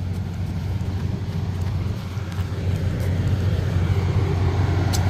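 Diesel locomotive of a standing passenger train idling, a steady low hum.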